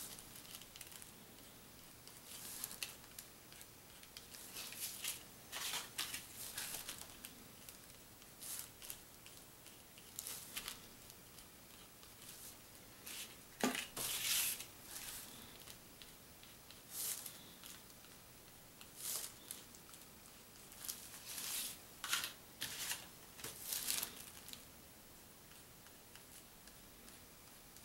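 Paint pen tip scratching and dabbing on a paper hang tag in short, irregular strokes. One sharper knock about halfway through.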